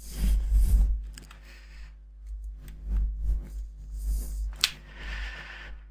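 Low hum and rumble on the recording microphone, swelling now and then, with faint soft noises and one sharp click about three-quarters of the way through.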